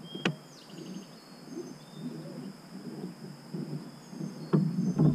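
YakGadget manual power pole anchor being lowered on a kayak, rattling and knocking in its mount, with louder knocks near the end: the noise the owner hates about it. Crickets buzz steadily behind it, with a couple of bird chirps.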